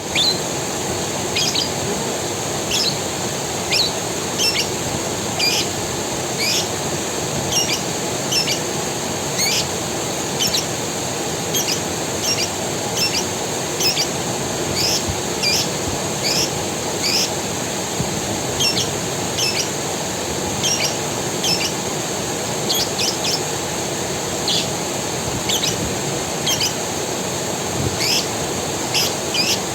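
Steady rush of a forest creek, with a bird giving short, sharp chirps over and over all the way through, above a steady high hiss.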